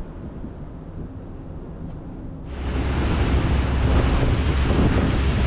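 Wind and water noise with a steady low rumble. About two and a half seconds in it cuts abruptly to a louder, brighter wash of wind on the microphone and water.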